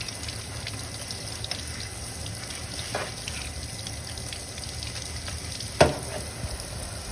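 Kitchen faucet spray running steadily over crab pieces into a stainless steel sink, with a faint click about three seconds in and one sharp crack near the end, the loudest moment.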